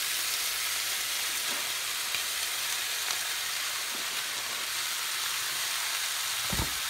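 Pork chunks frying in a very hot cast-iron pot as chopped onion is poured in: a steady sizzling hiss. A single sharp knock comes near the end.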